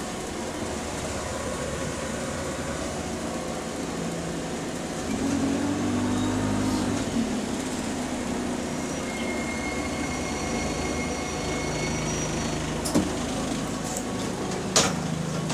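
Interior of a diesel bus in service: a steady engine and road drone, with the engine note rising a little about a third of the way in. A thin high whine is heard for a few seconds in the middle, and two sharp clicks come near the end.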